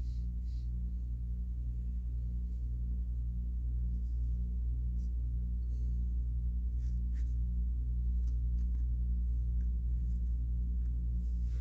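A steady low hum with a gentle pulsing, and a few faint light clicks.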